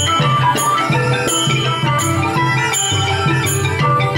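Khmer pinpeat ensemble playing: roneat xylophones run quick, busy melody lines over drums, with a bright stroke about twice a second.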